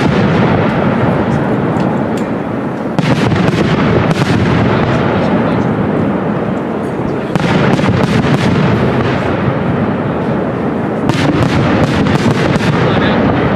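Large professional fireworks display: a continuous barrage of shell bursts and crackle, loud throughout. Fresh surges of bangs come about three, seven and eleven seconds in.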